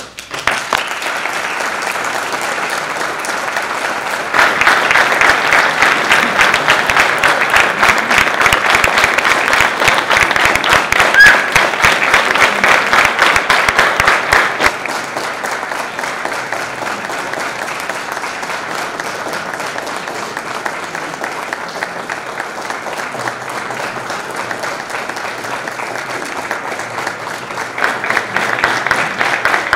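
Concert audience applauding. The clapping starts suddenly, grows louder about four seconds in, eases off about halfway through, and swells again near the end.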